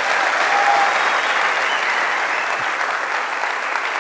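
Large audience applauding, many people clapping steadily.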